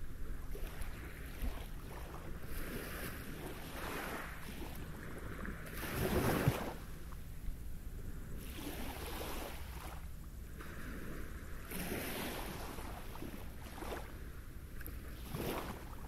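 Small waves washing up onto a pebble beach, one wash swelling and fading every few seconds, the strongest about six seconds in. A steady low rumble runs underneath.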